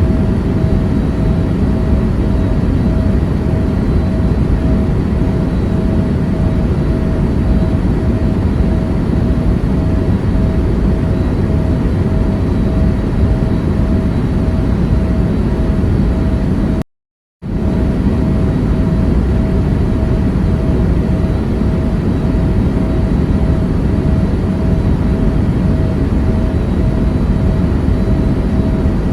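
Steady airliner cabin noise: a constant low rush with a faint steady hum over it. It is broken once, about seventeen seconds in, by a half-second gap of silence.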